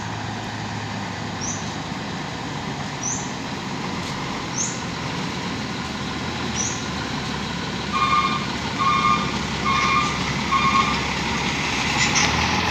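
Mercedes-Benz 917 truck's diesel engine running as the truck drives up, its sound growing louder as it comes close. About two-thirds of the way in, four short, evenly spaced beeps sound, a little under a second apart.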